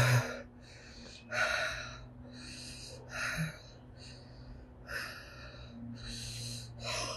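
A woman breathing hard through her mouth in about five heavy, rasping breaths a second or so apart, panting against the burn of Carolina Reaper chillies.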